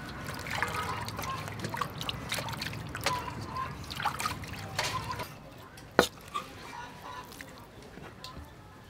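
Water sloshing and splashing in a steel bowl as peeled potatoes are washed by hand, with knife cuts on a chopping block; the sound grows quieter after about five seconds, and a single sharp knock comes about a second later.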